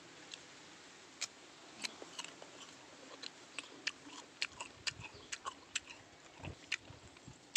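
A person chewing crisp guava: irregular short, crisp crunches close to the microphone.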